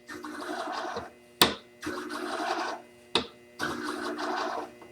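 Scissor blade drawn across the spinning 15-micron abrasive pad of a flat-hone sharpening machine: three passes of about a second each, a rasping hiss over the machine's steady hum, with a sharp click between passes.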